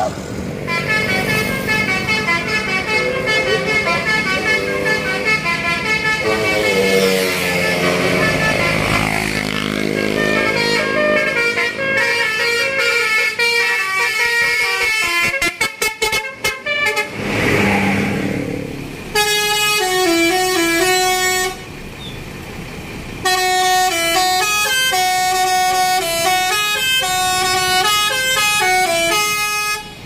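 Telolet basuri multi-tone musical bus horns playing quick stepped melodies. One tune fills the first half, breaks up into a choppy stutter a little past the middle, and then another horn plays its tune in short phrases with a brief pause about two-thirds through.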